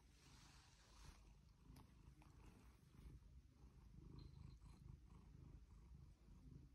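Domestic tabby cat purring faintly, a low pulsing rumble that grows stronger in the second half. A brief rustle near the start.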